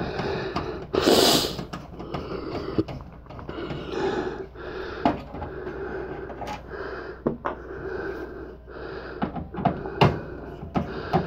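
Scattered clicks, taps and rustling as a screwdriver works at the rear panel of a steel PC tower case, starting on the power supply screws, with a brief hiss about a second in.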